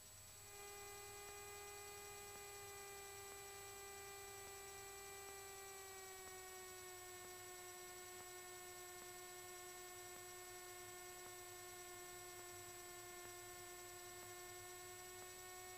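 Near silence with a faint steady whine that has several overtones. It starts just after the beginning and drops slightly in pitch about six seconds in.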